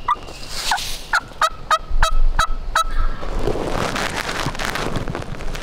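Wild turkey calling: a quick run of about eight sharp notes, a little over three a second, lasting under three seconds. This is followed by a steady rushing noise.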